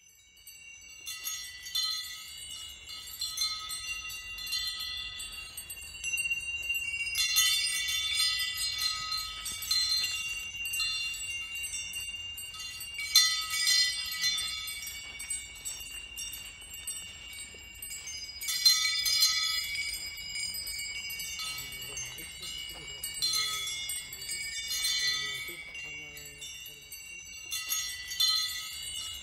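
Metal wind chimes tinkling in clusters of quick strikes over several high tones that keep ringing. The tinkling swells and thins in waves. It starts abruptly out of silence.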